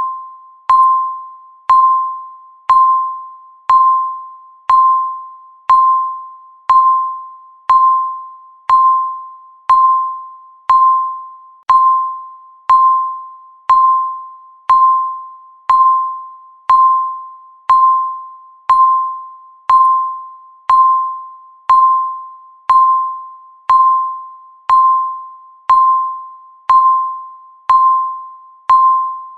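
Countdown timer's electronic tick: a short, pitched ping with a sharp start and a quickly fading ring, repeating evenly once every second.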